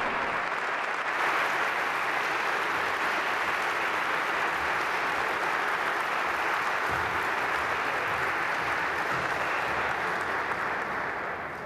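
Large audience applauding steadily, fading away near the end.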